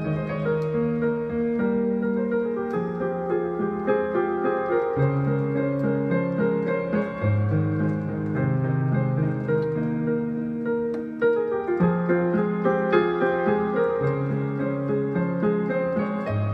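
Solo piano playing a slow, tender instrumental piece, notes held and overlapping.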